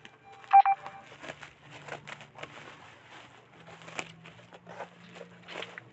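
Plastic bubble wrap on a parcel crackling and crinkling as it is handled, in scattered short clicks. A short, loud electronic tone sounds once about half a second in.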